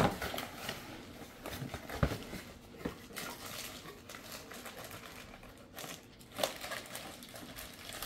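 Cardboard box flaps being pulled open and plastic packaging bags rustling and crinkling as items are lifted out, with a few light knocks of cardboard.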